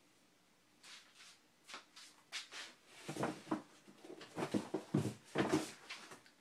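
A hardcover cookbook being handled and packed into a box: a run of uneven knocks, bumps and paper rustles that start about a second in and grow louder in the second half.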